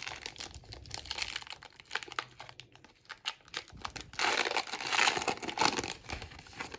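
Crinkling and tearing of a foil trading-card pack wrapper being ripped open, densest for about two seconds past the middle, with light clicks and rustles of cards being handled around it.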